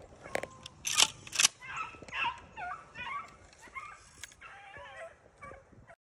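Pack of beagles baying as they run a rabbit, a chorus of rising and falling cries, with two sharp loud snaps about a second in. The sound cuts off suddenly near the end.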